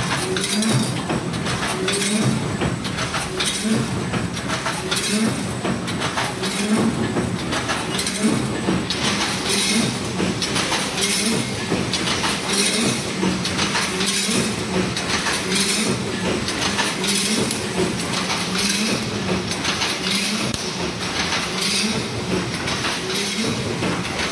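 A 3–6 mm wire mesh resistance welding machine running through its cycle: a steady rhythm of mechanical clanking and metal clinks, about one stroke a second, as the machine feeds wire and welds the mesh.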